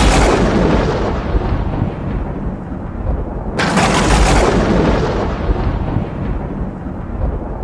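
Two thunder cracks laid over horror title cards: a sudden loud crash at the start and another about three and a half seconds in, each fading slowly into a deep rumble.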